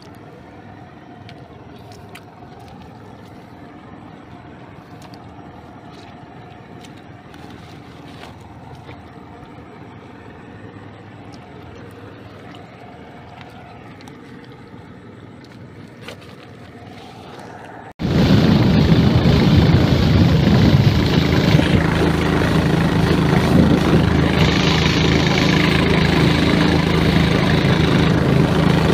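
Quiet handling noise with scattered faint clicks. About two-thirds of the way in it cuts abruptly to a small boat's engine running steadily and much louder.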